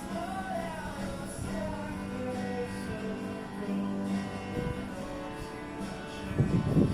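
Background music: guitar with a singing voice, with a louder burst of sound near the end.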